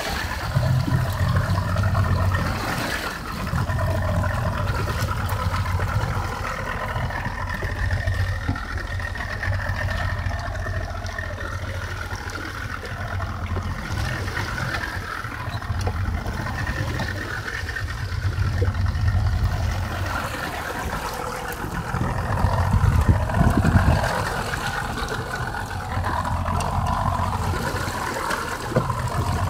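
Outboard motor of a small fishing boat running steadily at low speed, a continuous low drone.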